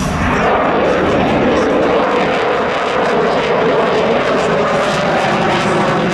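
Loud, steady aircraft engine noise from an aircraft flying at an air show.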